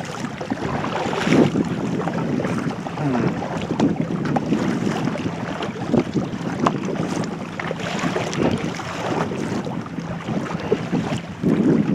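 Kayak paddle strokes dipping and splashing in the sea water, with wind buffeting the microphone.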